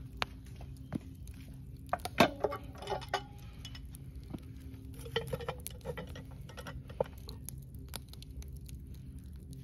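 Cast-iron Dutch oven lids and a metal lid lifter clanking and scraping as the coal-covered lids are handled, with the loudest clank about two seconds in and more metallic clinks a few seconds later. Light scattered ticking throughout.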